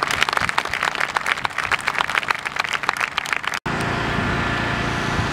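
Crowd applauding, many overlapping hand claps, which cut off abruptly about three and a half seconds in. A steady low rumble follows.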